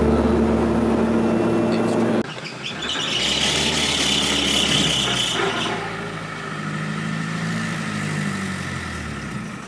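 Steady drone of a single-engine turboprop heard inside the cockpit, cutting off abruptly about two seconds in. It is followed by the engine and road noise of a small open vehicle driving along.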